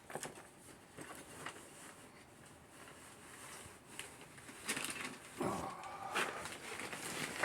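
Small clicks and knocks of plastic model kit boxes and parts being moved aside, with denser rustling and handling from a little after halfway.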